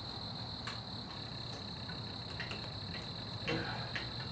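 Steady high-pitched trill of crickets, with about five light clicks and knocks of headlight parts being handled and fitted.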